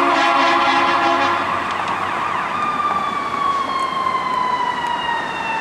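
Fire truck air horn blasting and cutting off about a second in, then the truck's siren winding slowly down in pitch.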